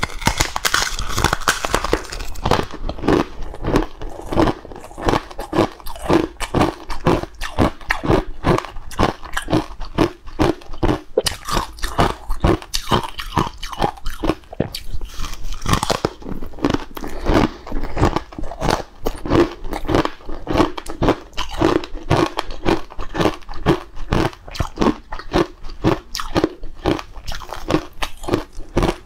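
Close-up crunching and chewing of a dry, crumbly green powdery slab: crisp crackles with steady chewing at about two chews a second.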